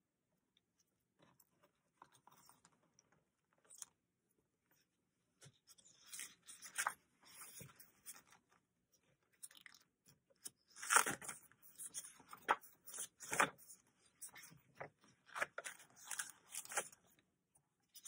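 Paper pages of a ring-bound planner being turned and flipped by hand: irregular rustles and flicks, faint at first, then busier, with the loudest page flicks about 11 and 13 seconds in.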